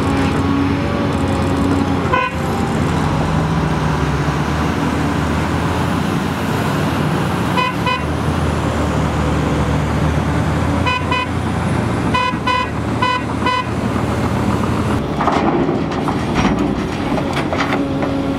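A Komatsu PC800LC excavator's diesel engine runs steadily under load. Several groups of short, high beeps, about three a second, come about 8 seconds in and again near the middle. Near the end, dirt and clods clatter as a bucketload drops into an articulated dump truck's bed.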